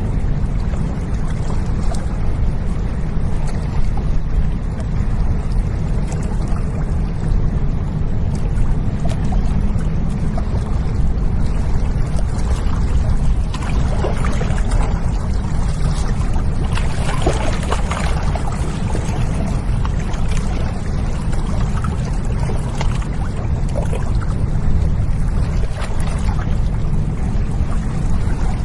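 Steady low engine drone of a container ship passing on a river, with water washing and splashing against the bank, strongest around the middle.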